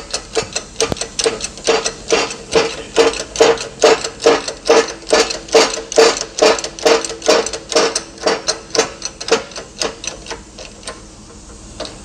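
Hand-pumped bottle-jack hydraulic shop press being worked while it presses a hub into a new wheel bearing. It makes a quick, even clacking about three times a second, each stroke with a short squeak. The strokes fade and stop about eleven seconds in, once the hub is seated.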